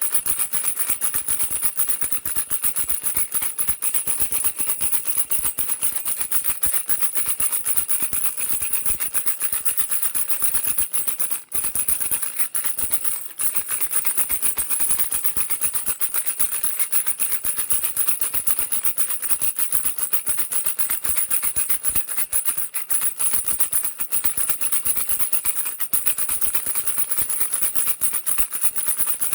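A baby rattle shaken fast and continuously, a dense stream of clicking beads, with a brief break about eleven seconds in.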